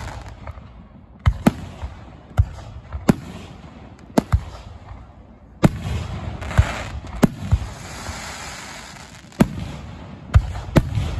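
Aerial fireworks shells bursting: about a dozen sharp bangs at uneven intervals, with a stretch of hissing crackle in the middle.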